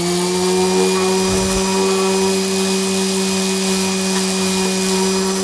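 Electric random orbit sander running steadily at one pitch, sanding a dovetailed cedar box.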